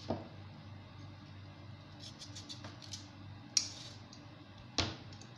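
Kitchen knife paring the green skin off a hand-held piece of watermelon rind: light cutting and scraping ticks, a sharp click about three and a half seconds in, and dull knocks near the start and near the end.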